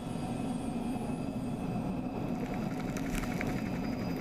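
Small spray helicopter's engine and rotor running steadily at close range as it lifts off. A rapid rattle of ticks comes in around the middle.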